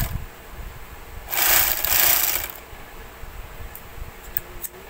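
Portable overlock edging machine running in two short bursts: a brief one at the start and a longer one of about a second near the middle. A few light clicks follow near the end.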